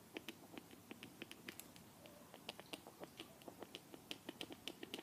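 Faint, rapid ticks and taps of a stylus on a tablet screen during handwriting.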